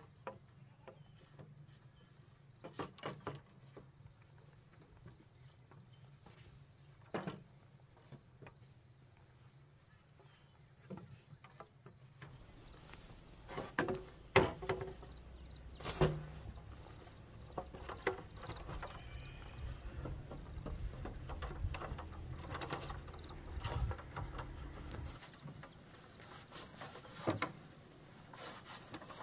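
Irregular knocks and taps, a few at a time with pauses between, over a low rumble that comes in about halfway through.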